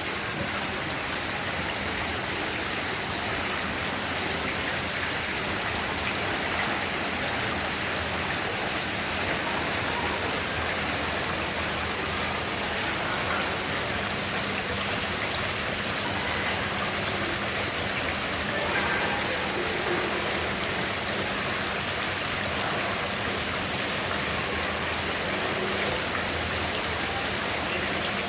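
Fountain water splashing steadily, with an even rushing sound.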